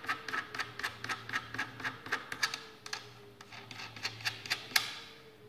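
Barrel fixing nut of a Pardus SBX shotgun spun by hand onto the magazine tube, giving a quick run of light metal clicks, about five or six a second, that thin out towards the end with one sharper click.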